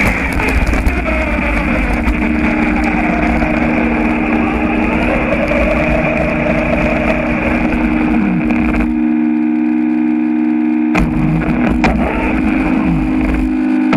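Radio-controlled buggy running over gravel and grass, heard from a camera mounted on it: a steady motor hum with a whine that rises and falls in pitch, over a rumble of tyres and wind. About nine seconds in, the rumble drops away for two seconds, leaving the motor's hum on its own.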